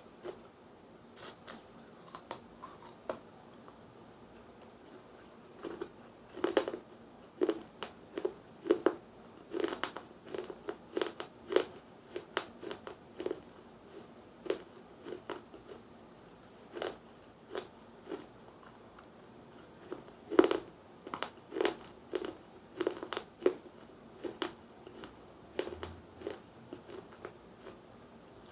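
Crunching of a mini clay diya being bitten and chewed: irregular sharp, crisp crunches in clusters, with quieter stretches of softer chewing between.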